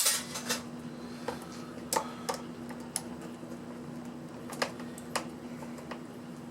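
Scattered clicks and taps of hard plastic and metal parts being handled while a portable power pack is taken apart, a sharp click at the very start and about eight more at uneven intervals. A steady low hum runs underneath.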